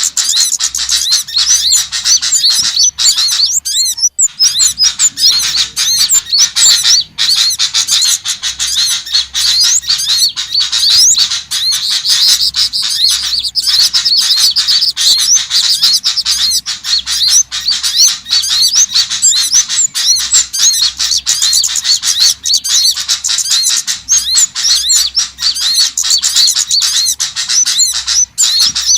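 Dense, continuous chorus of small songbirds chirping and twittering, many quick high notes overlapping without a break, in the style of a lure recording for catching small birds.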